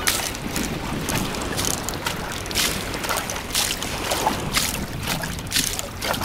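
Water sloshing and splashing in a plastic tub as a board is pushed back and forth by hand to make waves, with repeated splashes about twice a second.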